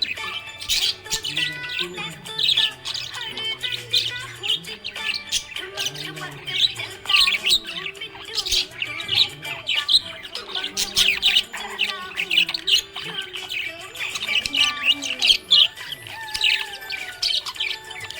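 Budgerigar chirping and chattering in a fast, continuous stream of short high-pitched chirps. Music plays underneath.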